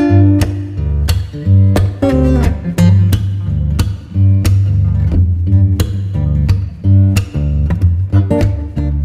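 Background music: plucked acoustic guitar over a heavy bass line and a regular percussive beat.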